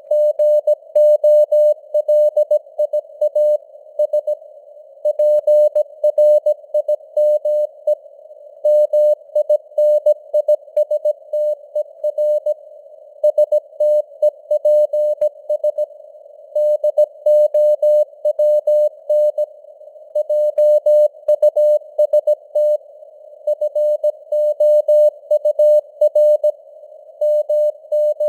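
Morse code (CW) sent at 17 words per minute: a single steady beep tone keyed on and off in dots and dashes, with short pauses between words. It sits over a narrow band of simulated radio hiss, and the signal strength fades up and down a little (QSB).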